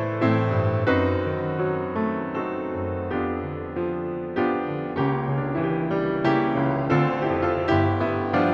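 Grand piano playing a hymn tune, with chords and melody notes struck at an unhurried pace and left to ring.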